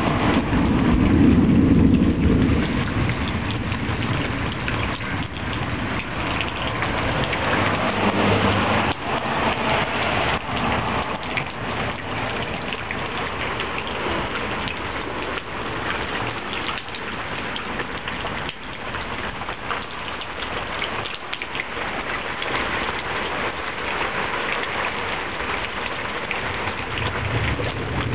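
Heavy rain falling steadily in a storm, with a low rumble in the first two seconds and another around eight seconds in.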